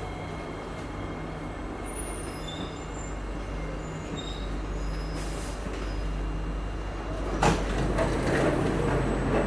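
Steady hum of a Singapore MRT train standing at a station platform. About seven and a half seconds in there is a sharp knock, followed by busier, louder clatter.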